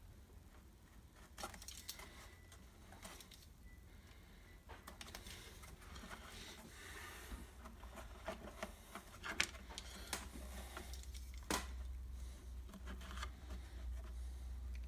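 Light handling sounds of trimming foam gasket material with a razor blade: scattered soft clicks, taps and scrapes, sharper twice in the second half, over a steady low hum.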